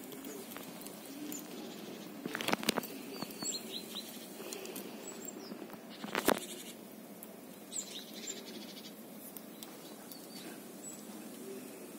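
A Eurasian red squirrel eating a nut held in its paws, with sharp cracks of the shell about two and a half and six seconds in. Faint small birds chirp now and then.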